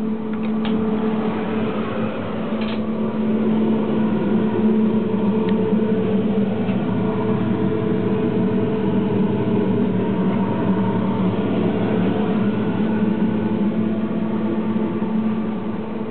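Double-deck push-pull commuter train running, heard from inside the coach: a steady hum with running noise, and a few light clicks in the first few seconds.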